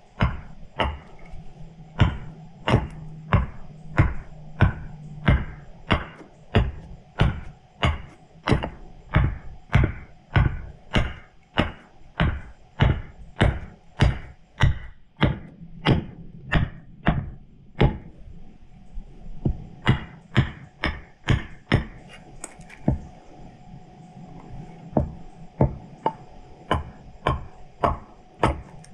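Steady rhythm of sharp wooden chops, nearly two a second, as a tool bites into the wood of a large spoon blank, with a short pause about two-thirds of the way through.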